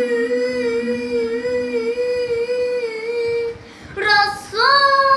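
A young girl singing a religious song, holding one long note with a slight vibrato for about three and a half seconds, with a lower note held under it for the first two seconds. After a short break she starts a new note that slides up into place.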